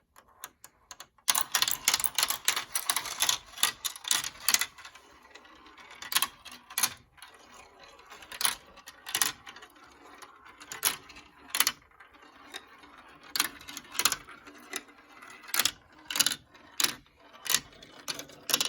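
Marbles rolling and clattering along a marble run. A dense burst of clicks comes about a second in and lasts three seconds or so, followed by single clicks and knocks every half second to a second over a faint rolling hiss.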